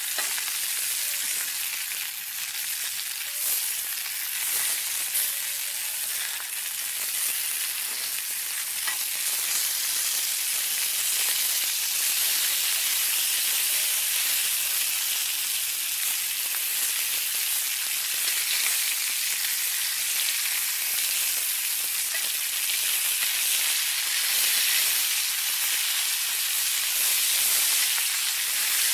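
Johnsonville Italian sausages, with sliced peppers and onions, sizzling steadily in a cast iron skillet over a wood fire.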